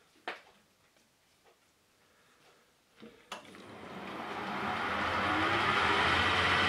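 A metalworking lathe is switched on with a click about three seconds in. Its motor and spindle run up to speed, with a rising tone under a growing machine noise, and then run steadily. Before that there are a couple of small clicks.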